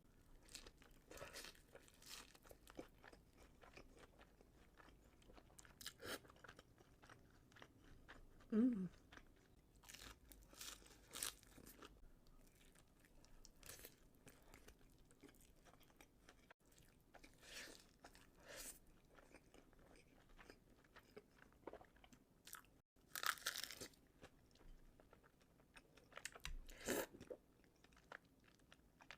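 A person eating sushi close to the microphone: irregular bouts of biting and chewing mouth sounds. A brief pitched sound about eight and a half seconds in is the loudest moment.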